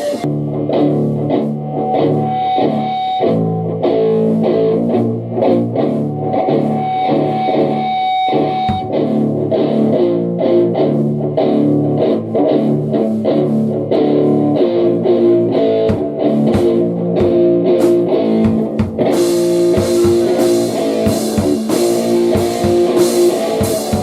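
Electric guitar playing a riff with sustained notes, the band's full drums and cymbals coming back in about nineteen seconds in.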